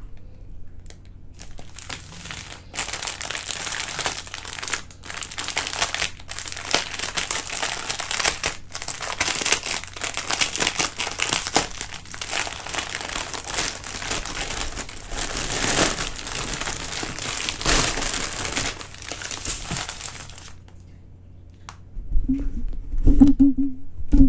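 Clear plastic wrapping around a bundle of diamond-painting drill bags being peeled off by hand, a dense, continuous crinkling that stops a few seconds before the end.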